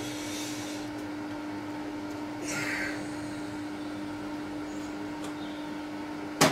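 Metal-turning lathe running with a steady hum while turning a steel steering shaft, with a short scraping hiss about halfway through. A sharp click near the end.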